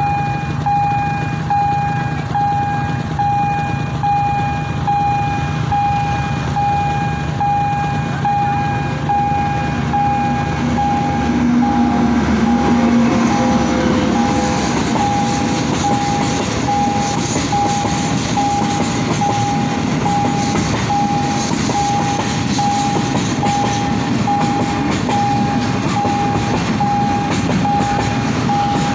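Railway level-crossing warning bell ringing in a steady pulse, about two strokes a second, while a freight train arrives about ten seconds in and rumbles past the crossing.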